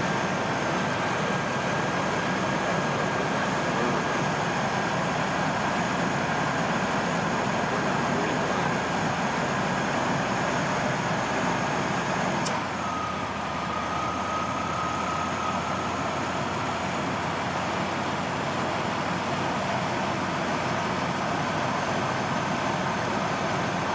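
Chevy Astro van engine running under the open hood with the AC on, a steady mechanical running noise. About halfway through there is a single click, and the running sound drops slightly and changes tone.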